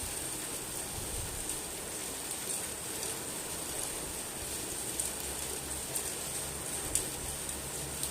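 Steady rain falling, an even hiss with a few sharper drop ticks about five, six and seven seconds in.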